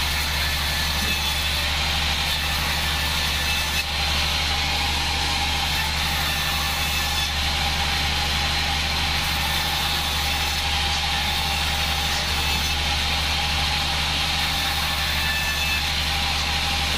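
Homemade band sawmill running steadily, a constant low machine hum with a hiss over it, as it saws mahogany boards off a log.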